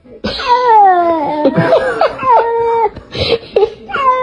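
Domestic cat meowing in a string of long, drawn-out cries that slide down in pitch, then one more near the end.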